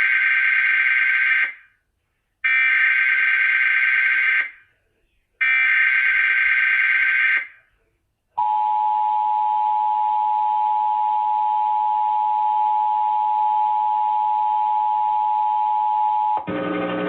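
Emergency Alert System SAME header sent over NOAA Weather Radio for a test tornado warning: three bursts of warbling data tones, each about two seconds long with short silences between them. These are followed by a steady attention tone lasting about eight seconds. The attention tone cuts off near the end, and a low hum takes over.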